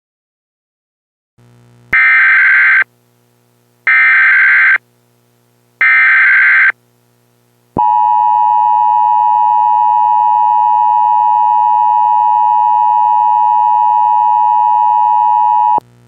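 Emergency Alert System tones. About two seconds in come three identical bursts of SAME digital header data, each about a second long and two seconds apart. They are followed by the steady two-tone EAS attention signal, held for about eight seconds before it cuts off, marking the start of an emergency alert broadcast.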